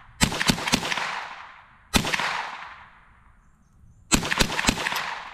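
Rifle shots from a scoped semi-automatic rifle, each with a long echoing tail: a quick string of three or four shots at the start, a single shot about two seconds in, and another rapid string of about four shots near the end.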